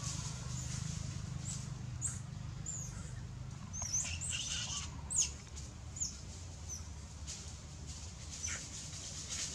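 Scattered short, high chirps and squeaks, a few each second at times, the loudest about five seconds in, over a steady low hum.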